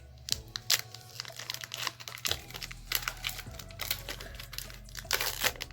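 Foil wrapper of a Pokémon trading card booster pack crinkling and crackling in irregular bursts as it is handled and torn open.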